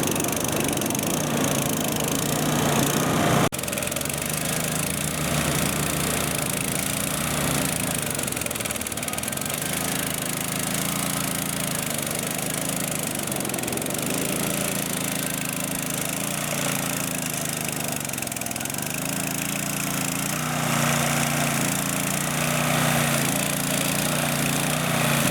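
Mikasa MCG-50 groove cleaner's small engine running steadily, its pitch wavering slightly up and down, with a steady scraping hiss over it. The level drops abruptly about three and a half seconds in.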